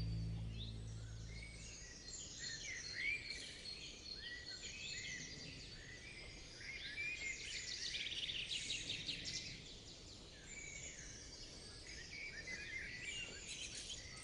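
Woodland songbirds chirping and singing, many short overlapping calls, trills and whistled glides. A low held musical note fades out in the first two seconds.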